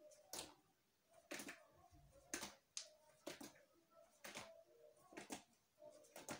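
Faint thuds of sneakers landing on a tiled floor about once a second during squat jumps.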